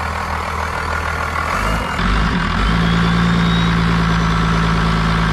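First-gen Cummins 5.9 L 12-valve inline-six turbo diesel running just after its first start in ten years, with its accessory belt off. About two seconds in it picks up and settles into a louder, steadier run, with a faint rising whine.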